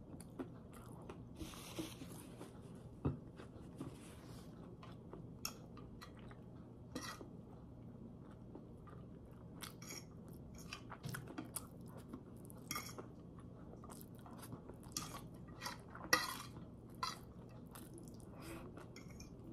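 A person chewing pad thai noodles with small wet mouth clicks, and a fork now and then tapping and scraping on a plate, the sharpest tap about three seconds in.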